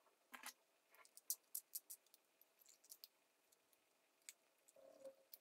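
Faint, sharp snips of scissors cutting thin aluminium drink-can sheet: a dozen or so quick clicks, most in the first three seconds, then a soft handling sound near the end.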